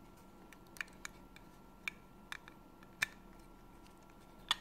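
Small sharp clicks and taps of 9-volt battery metal cases and snap terminals knocking together as the batteries are handled, about six in all at uneven spacing, the loudest about three seconds in and near the end.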